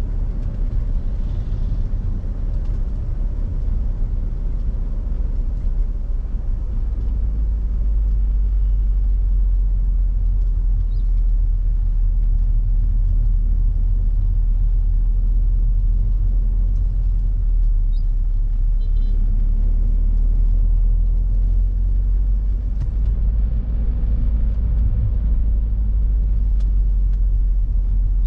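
Peugeot 406 car being driven: a steady low rumble of engine and road noise, getting slightly louder after about eight seconds.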